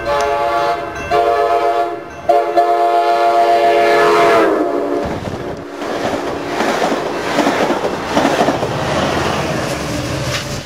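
Amtrak Pacific Surfliner cab car's Nathan K5LA five-chime air horn sounding in blasts with short breaks, about one and two seconds in. Its chord drops in pitch as the cab car passes about four seconds in. Then the bilevel cars rush past at speed with a clickety-clack of wheels over the rail joints.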